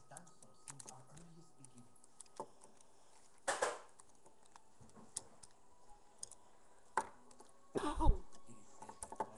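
Plastic Lego bricks clicking and clattering as they are handled and pressed together, with scattered small clicks, a brief rattle about three and a half seconds in, and a louder bump and rustle of handling near the end.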